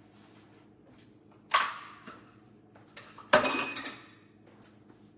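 Dishes and metal utensils clattering while a kitchen counter is cleared: a short clank about a second and a half in, then a longer, ringing metallic clatter about two seconds later, over a faint steady hum.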